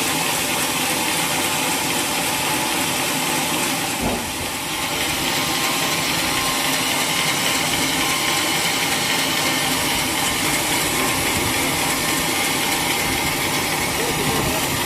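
Sawmill machinery running steadily, a continuous loud mechanical din, with one sharp knock about four seconds in.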